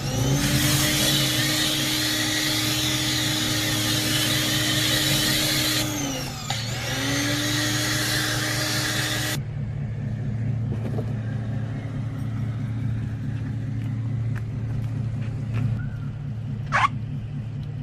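Hyper Tough 1800 PSI electric pressure washer spraying: the motor runs with a steady whine under a loud spray hiss, its pitch dips and comes back about six seconds in. The spray stops suddenly about nine seconds in, leaving a steady low hum, with a short sharp high squeak near the end.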